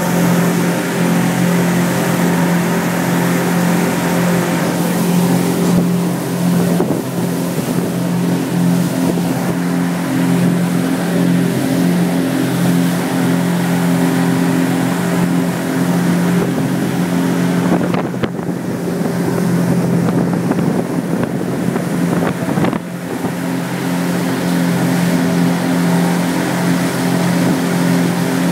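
Twin Honda four-stroke outboard motors running steadily at cruising speed, a constant engine drone over the rush of churning wake water and wind.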